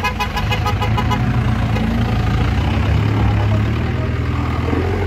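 Modified off-road Jeep's engine running steadily at idle, a low, even hum. Over it, for the first second or two, comes a rapid pulsing tone, about eight pulses a second, that then fades away.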